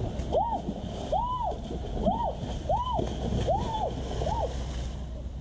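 Water splashing in a shallow stream as something moves through it, over a series of about six short cries that each rise and then fall in pitch, roughly one every two-thirds of a second.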